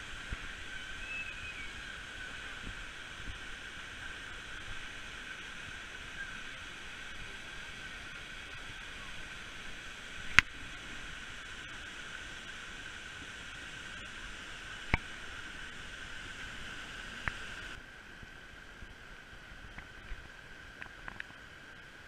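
Steady rushing of the Orkhon Waterfall's falling water, with a few sharp clicks; the rush drops to a quieter level about 18 s in.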